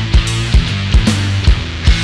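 Background rock music with a steady drum beat, about two hits a second.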